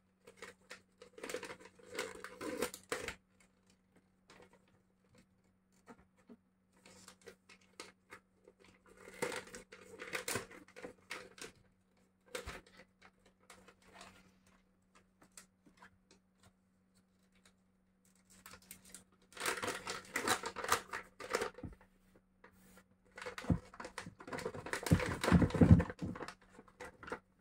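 Plastic dog-treat pouch crinkling in the hands in four bursts, as its top strip is torn off. The loudest burst comes near the end, with bag rustle and soft knocks as the bone-shaped treats are shaken out onto a table. A faint steady hum runs underneath.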